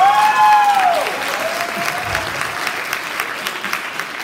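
Audience applauding, with a loud whoop near the start that drops in pitch as it ends and a shorter, fainter call about two seconds in.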